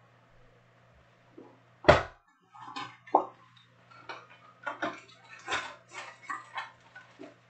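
A single thump about two seconds in, the loudest sound, then a string of short crinkles and rustles of cardboard and paper as a trading-card hobby box is opened and its packaging is handled.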